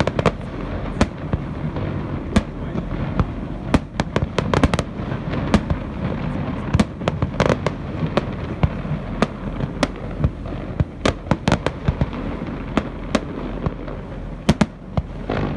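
Aerial fireworks bursting: an irregular series of sharp bangs, some coming in quick clusters, over a steady low rumble.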